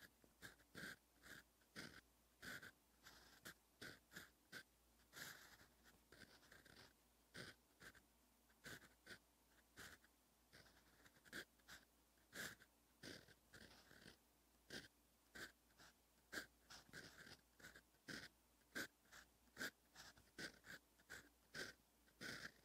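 Fountain pen nib scratching across lined paper as Korean letters are handwritten: a quick, irregular run of short strokes, each a fraction of a second, with brief pauses between letters.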